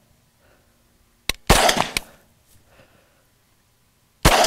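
Two rifle shots from a 5.56 AR-15, about three seconds apart. Each is a sharp crack that rings out for about half a second, and the first comes just after a short click.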